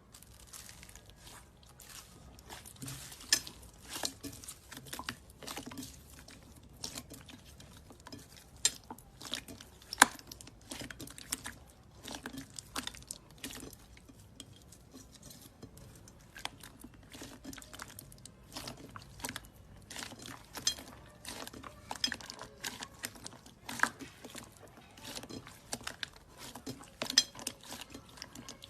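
Slime being worked by hand: a steady run of irregular sticky clicks and small pops.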